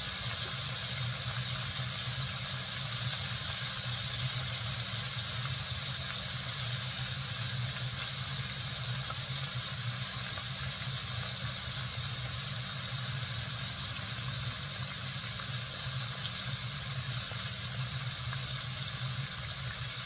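Chicken livers deep-frying in hot oil in a Dutch oven: a steady sizzling hiss, with a steady low hum underneath.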